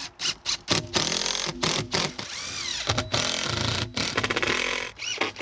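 Cordless DeWalt impact driver driving screws. A few short trigger pulses come first, then long runs of rapid hammering, with the motor whine rising and falling. It stops about five seconds in.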